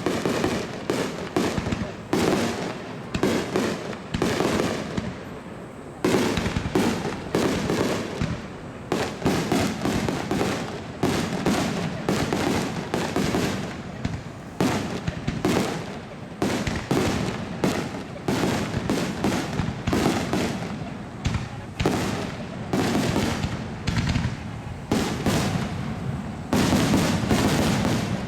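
Aerial fireworks bursting in a dense, continuous barrage: sharp bangs come several a second, each followed by a short echo.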